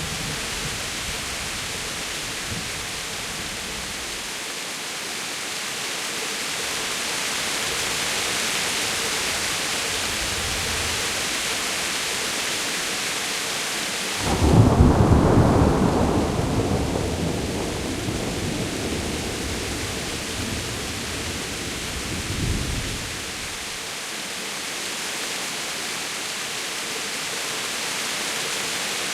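Heavy rain pouring steadily, with a loud clap of thunder about halfway through that rumbles off over a few seconds, and a shorter, fainter rumble of thunder later on.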